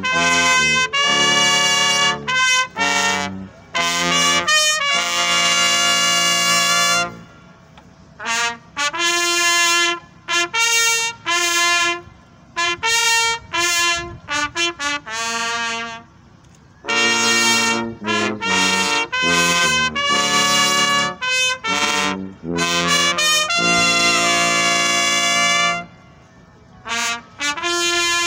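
A trumpet playing a melody in phrases, with short pauses between them.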